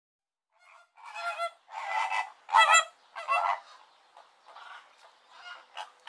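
Flamingos calling: five or six short, loud calls about every half second, loudest just before the middle, followed by fainter scattered calls.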